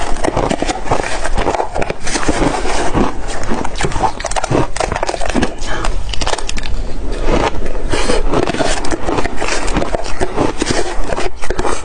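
Close-miked crunching of ice being bitten and chewed, a dense, continuous run of sharp cracks and crunches.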